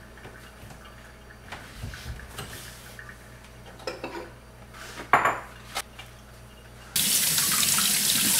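Kitchen handling sounds: a few clinks and knocks of dishes and a cabinet, the sharpest about five seconds in. About seven seconds in, a pull-down kitchen faucet turns on and runs steadily into the sink as bell peppers are rinsed under it.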